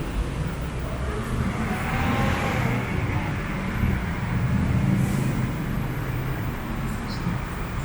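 Street traffic: vehicles passing with a steady low engine rumble that swells a little midway.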